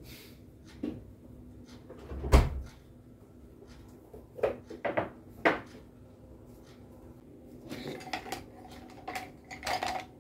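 Kitchen handling sounds: a refrigerator door thuds shut about two seconds in, then a few sharp knocks as things are set down on a table, and a light clatter of wooden utensils in a ceramic cup near the end.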